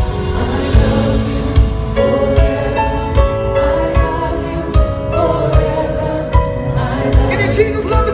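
Live gospel music: a band plays held chords over a slow, steady drum beat, about one hit every 0.8 seconds.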